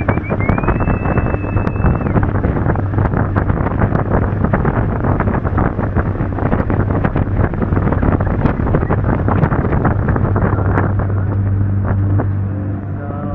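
Speedboat running fast on a river: a steady low engine hum under heavy wind buffeting on the microphone and rushing water. A brief high whistle sounds in the first two seconds.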